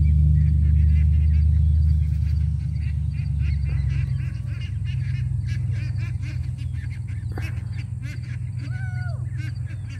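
A flock of ducks quacking and chattering in a rapid, continuous series of short calls, with one longer call near the end. A steady low rumble on the microphone sits underneath, loudest in the first two seconds and then easing.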